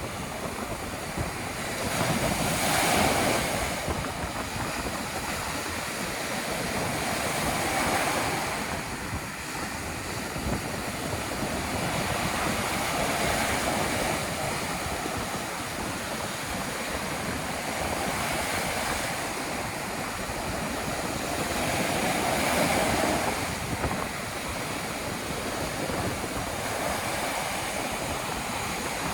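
Ocean surf breaking on a beach in a strong wind, a steady wash of water that swells and eases as each wave comes in, with wind buffeting the microphone.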